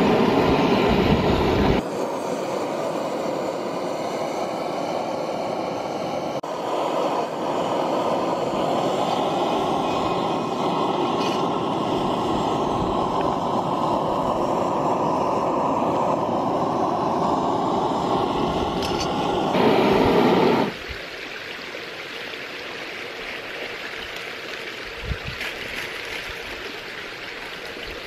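Alpkit Kraku titanium canister gas stove burning at full flame with a steady roaring hiss, heating water to a boil in a titanium mug behind a windshield. About twenty seconds in the burner sound cuts off, leaving a fainter steady rushing hiss.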